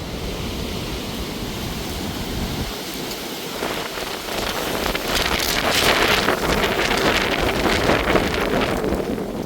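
Storm wind and rain, a steady rushing noise with a low rumble, swelling into a stronger gust about halfway through and easing off near the end.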